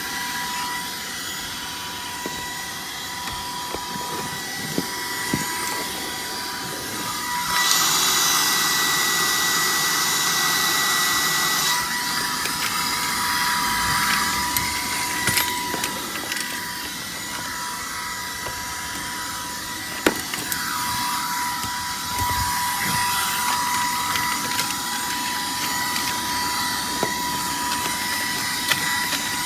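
Moosoo cordless stick vacuum running with its narrow attachment fitted: a steady motor whine over a rushing suction hiss, with scattered clicks and knocks. About a quarter of the way in, the hiss grows louder and brighter for about four seconds, then drops back.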